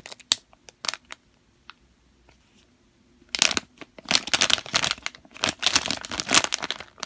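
Plastic squishy-toy package crinkling as hands squeeze and turn it: a few scattered crackles, a pause of about two seconds, then dense steady crinkling.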